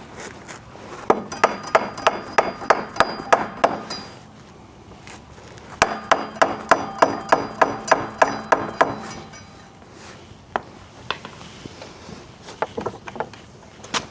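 A hammer beating on a wooden block in two quick runs of about four blows a second, with a few scattered blows near the end. The block is used as a buffer so the hammer does not damage the part.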